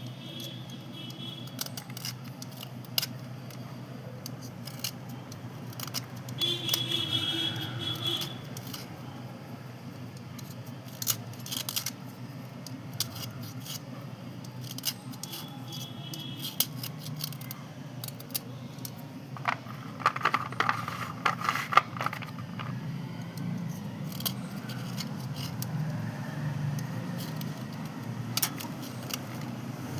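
Brittle white slate pencils and chalk being crunched and scraped, with scattered sharp clicks and crackles, a denser run of crackling about two-thirds of the way through, and a few short high squeaks. A low steady hum runs underneath.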